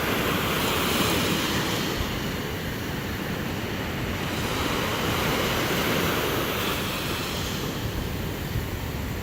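Sea surf washing onto the beach with wind buffeting the microphone, a steady rushing noise that swells and eases slowly.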